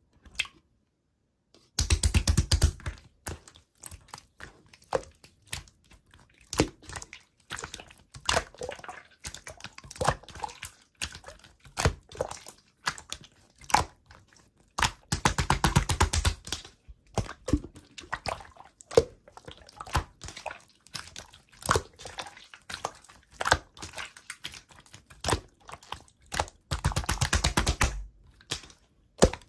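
Slime being squished and pressed by hand, making irregular sticky clicks and pops, with three spells of dense, rapid crackling.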